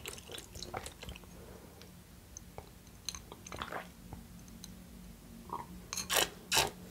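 Close-miked eating sounds: soup sipped from a bowl held to the mouth, with chewing and small wet mouth clicks. A few louder sips come near the end.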